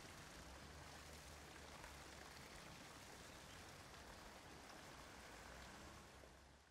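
Faint, steady rain falling, fading out near the end.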